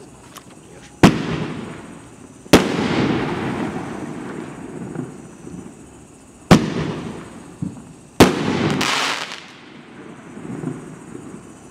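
A 9-shot consumer fireworks cake (Dominator Devil's Fury) firing. There are four sharp bangs, at about 1, 2.5, 6.5 and 8 seconds, each followed by a noisy tail that fades over a second or two.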